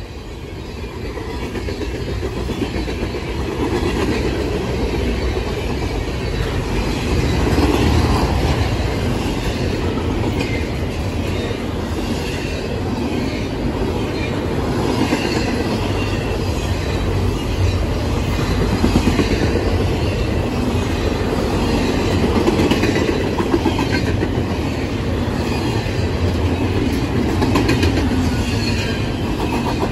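Freight cars of a long intermodal train, loaded with trailers and containers, passing at speed: a steady, loud rumble of steel wheels on rail with scattered clacks, swelling over the first few seconds.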